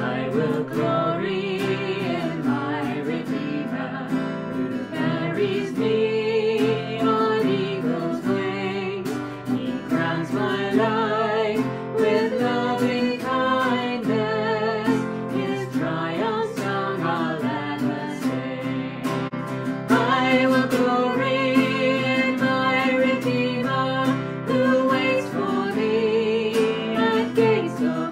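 A man and a woman singing a hymn together over strummed guitar accompaniment.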